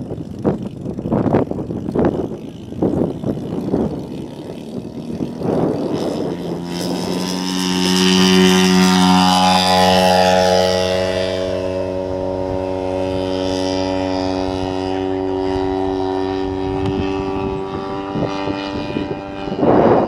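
Engine and propeller of a one-third-scale Waco YMF-5 radio-controlled biplane in flight. The engine comes in about six seconds in at a steady pitch, is loudest as the plane passes low, then holds steady as it climbs away. Irregular low rumbles come before it and again near the end.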